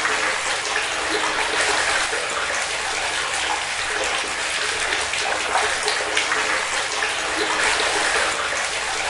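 Water running steadily and splashing into water, the sound of a tap pouring into a bathtub.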